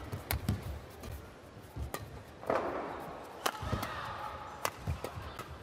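Badminton rally: several sharp racket strikes on the shuttlecock, mixed with thumping footfalls on the court. A short, louder, noisier burst comes about halfway through.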